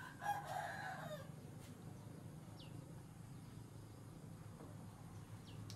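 A rooster crows once, a short call of about a second near the start that falls in pitch at its end. Two faint high bird chirps follow later, over a low steady hum.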